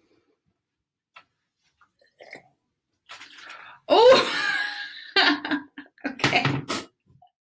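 Vinegar solution poured into a baking-soda volcano, splashing and fizzing as it reacts. A woman's surprised "Oh!" comes about four seconds in and an "Okay" near the end.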